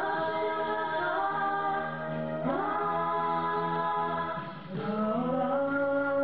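A boy and a girl singing a slow song together into microphones, in long held notes, with a short break about four and a half seconds in before the next phrase.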